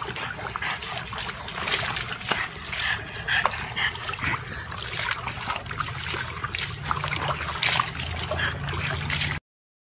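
Water splashing and sloshing in a plastic tub as a dog sits and shifts about in it and a second dog climbs onto the rim, with water spilling over the edge onto pavement. The sound stops abruptly near the end.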